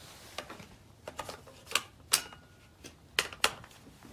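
A run of sharp metallic clicks and clacks as cartridges and the magazine of a Rock River .308 rifle are handled during loading. The loudest click comes about two seconds in, and a close pair follows a little over a second later.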